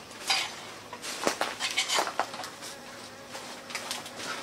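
A few light clinks and taps of spoons and dishes, over a steady high hum of insects.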